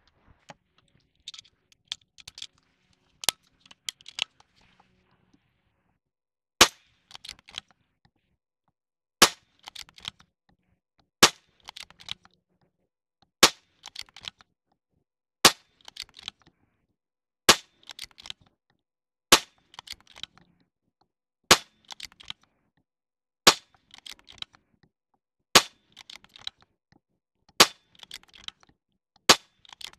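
Niksan Tacto-S .22 PCP air rifle with a shrouded barrel firing a string of about a dozen shots, one every two seconds or so, starting about six seconds in. Each shot is followed by small clicks of the action being cycled, and a few lighter clicks come before the first shot.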